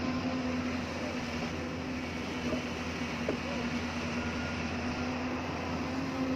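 Excavator diesel engine running steadily, a constant even drone with a low hum.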